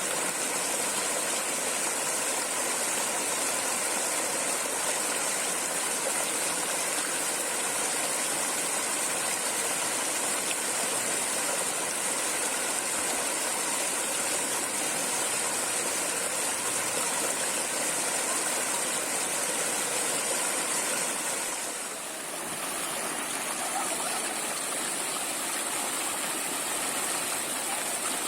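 Flowing water running in a steady, continuous rush, dipping briefly about twenty-two seconds in.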